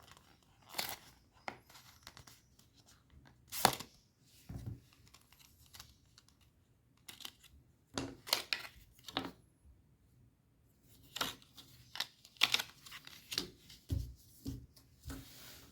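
Irregular clicks, scrapes and rustles of hands working on a laptop, with plastic and small tools knocking and rubbing, in short clusters with pauses between them.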